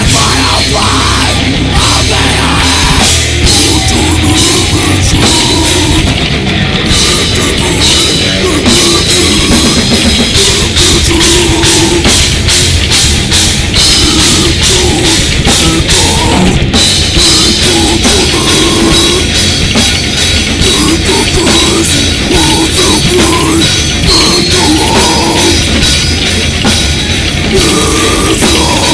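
A death metal band playing live and loud: distorted electric guitars over a drum kit, with a run of fast, even snare and cymbal hits in the middle stretch.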